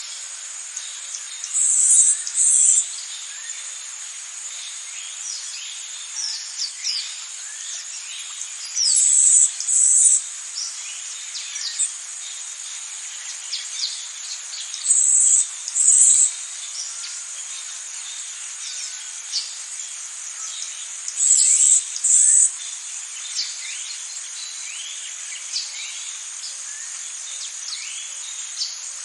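Tropical rainforest ambience: a steady high drone of insects, with many short falling bird chirps over it. A louder high call in two quick pulses comes four times, about every six or seven seconds.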